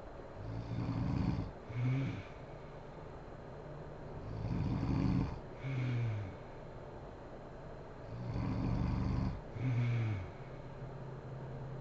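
A sleeping woman snoring heavily in a regular rhythm, three snores about four seconds apart. Each is a rattling snore about a second long, followed at once by a shorter one that falls in pitch.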